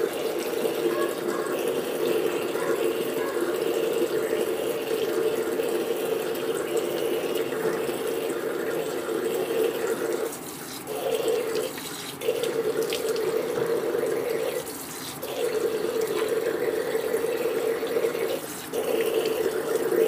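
Water tap running into a sink while someone washes their face, splashing water from cupped hands. The steady rush of the stream drops away briefly four times in the second half.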